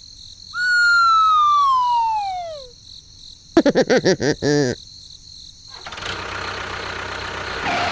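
A long descending whistle, the classic cartoon 'falling' sound effect, gliding down for about two seconds. About three and a half seconds in comes a quick run of short wobbling pitched blips, and a steady hiss follows near the end.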